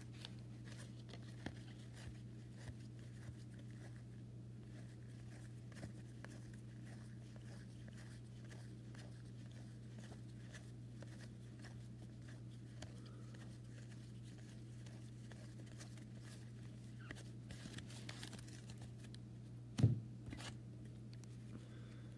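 Trading cards and pack wrappers handled quietly: soft rustles and small clicks as cards are flicked through, over a steady low hum, with one louder knock near the end.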